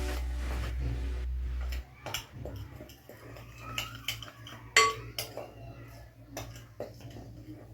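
Metal spoon knocking and clinking against a bowl while dry flour coating is stirred, with one sharp ringing clink about five seconds in. A low steady hum runs under the first two seconds and then stops.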